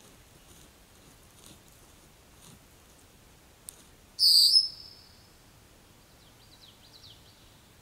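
A bird's short, loud, high call about four seconds in, one of a series that repeats every four to five seconds, preceded by a sharp click. Faint, quick high chirps follow near the end.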